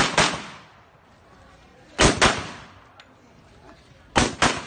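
Pistol shots fired in quick pairs (double taps), three pairs about two seconds apart, each shot with a short ringing tail, as the shooter engages IPSC targets on a practical shooting stage.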